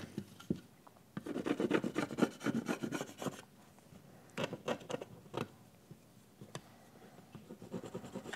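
Green plastic weatherstrip stick scraping leftover rubber weatherstrip residue off a chrome beltline molding: a quick run of scraping strokes about a second in, then a few scattered single strokes.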